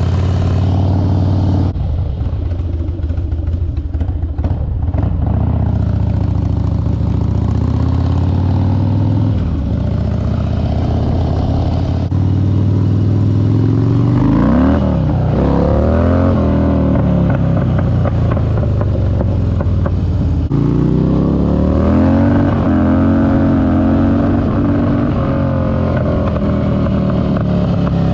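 Harley-Davidson Dyna's Twin Cam 88 V-twin engine through a Bassani exhaust, running under way on a ride. It holds a steady pitch, rises and falls sharply about halfway through as it revs and changes gear, then climbs again.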